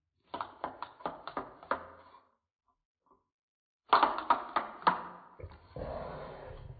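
Two runs of sharp mechanical clicks from a hand crimping tool being worked, five or six clicks in each at about three a second. The second run is louder and ends in a rough rasping noise lasting about a second.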